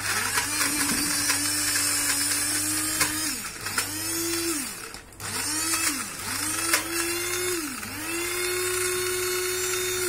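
Small electric food chopper's motor running in pulses, chopping peeled garlic cloves into a paste: one long run of about three seconds, then four shorter ones. Each run spins up and winds down.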